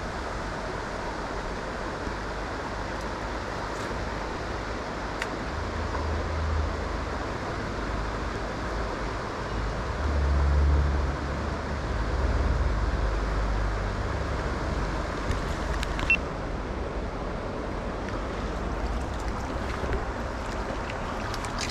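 Mountain stream rushing steadily, with gusts of wind rumbling on the microphone from about six to fourteen seconds in.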